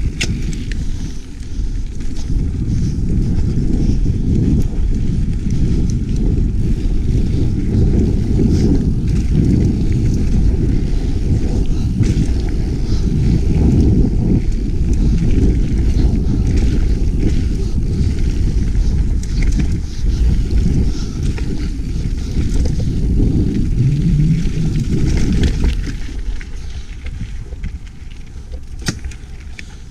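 Mountain bike rolling fast down dirt singletrack: a steady rumble of wind on the microphone and tyres on the trail, with scattered clicks and rattles from the bike. It eases off a little near the end.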